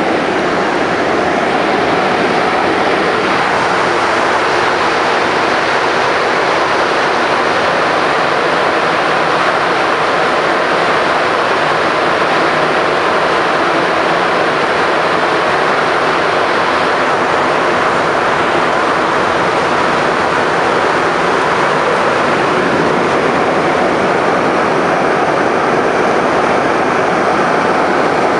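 Steady, loud running noise inside a Montreal MR-73 rubber-tyred metro car as it travels through the tunnel.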